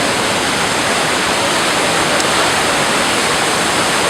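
Johns Brook in flash flood, swollen by heavy rain: a loud, steady rush of fast-moving water.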